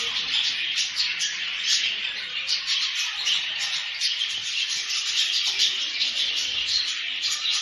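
A flock of small birds chirping and calling together: a dense, unbroken chorus of quick, high, overlapping chirps.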